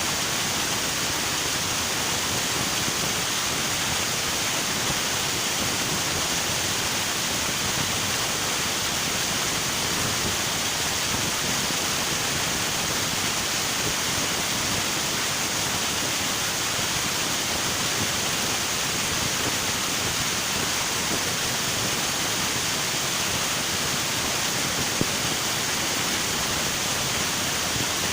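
Steady rushing of river water flowing over rocks: an even, unbroken hiss.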